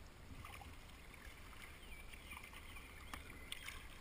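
Faint splashing and dripping of a kayak paddle working the water, a few small sharp ticks near the end, over a low steady rumble.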